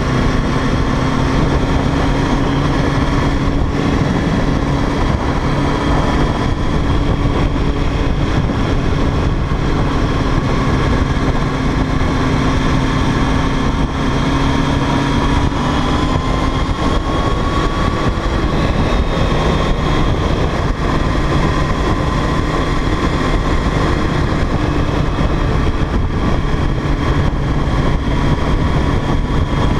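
Sport motorcycle cruising at steady speed, its engine note held steady under heavy wind rush on the bike-mounted camera's microphone; the engine pitch shifts slightly about halfway through.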